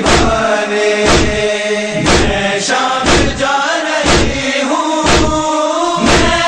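Noha chanting by a group of voices, a held melody without clear words, over a strong beat about once a second.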